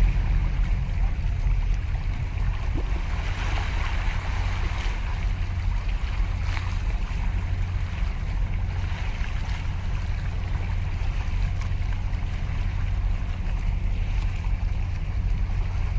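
Small waves lapping and splashing against concrete breakwater blocks, a little stronger a few seconds in, over a steady low rumble.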